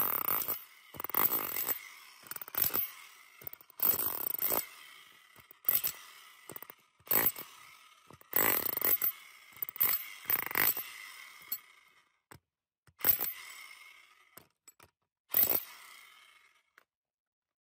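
TNT electric hammer drill with a chisel bit hammering into rock, run in about a dozen short bursts of under a second each, the gaps between them growing longer toward the end as the rock breaks apart.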